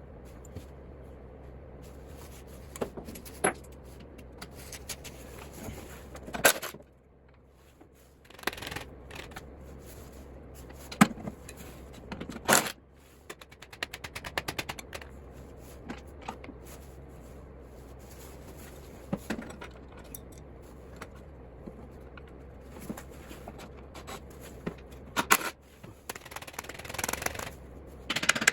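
Hand tools and metal mower parts being handled: scattered knocks, clinks and scrapes, with a few quick runs of rapid clicking, over a steady low hum.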